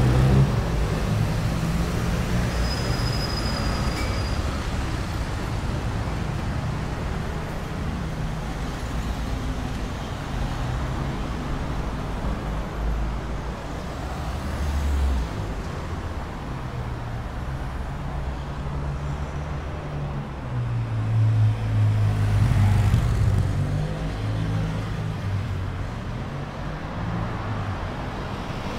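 Road traffic on a city street: cars, a bus and motorbikes running past with a steady low engine rumble. A vehicle goes by louder about three quarters of the way in, and a brief high squeal is heard about three seconds in.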